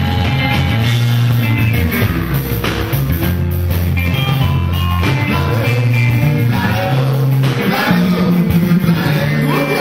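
A live band playing: two electric guitars over a stepping bass line and a drum kit, with a man singing into a microphone.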